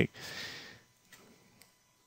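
A man drawing a short breath through the mouth between sentences, lasting under a second, then quiet with two faint clicks.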